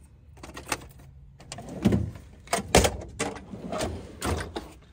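Truck service-body tool drawers sliding shut and open, with a series of clacks and rattles from the drawers and the tools inside them. The loudest knocks come about two and three seconds in.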